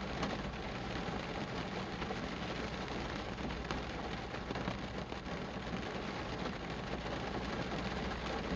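Steady rain falling, with scattered individual drops striking close by.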